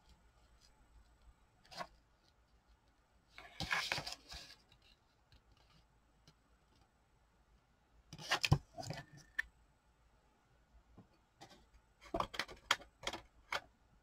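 Paper and cardstock being handled on a cutting mat: a brief rustle and slide of paper, then louder handling with a sharp knock, then a run of quick light taps and clicks.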